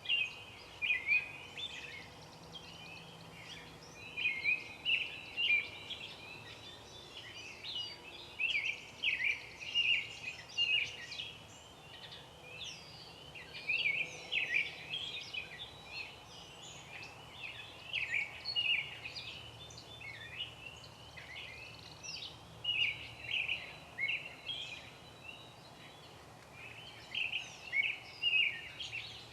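Songbirds singing: many short, high phrases, one after another and sometimes overlapping, about one a second.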